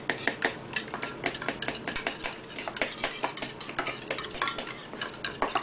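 Wire whisk clinking against a ceramic mixing bowl as egg batter is beaten by hand, in quick, uneven ticks.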